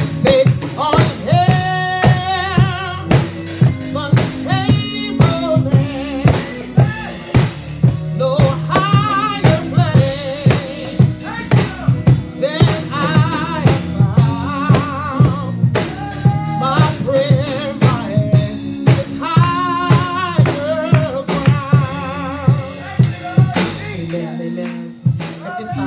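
Gospel song with a sung lead vocal over a drum kit keeping a steady beat of about two strokes a second, with sustained low accompanying notes.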